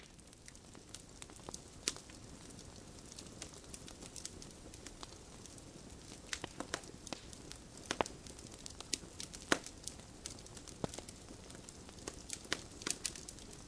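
Irregular crackling: scattered sharp pops and clicks over a steady quiet hiss.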